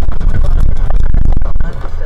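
A car running off the road across rough grass and dirt, heard from inside the cabin: heavy rumbling and rapid jolting knocks from the body and suspension, loud enough to overload the dash-cam microphone, easing off about one and a half seconds in.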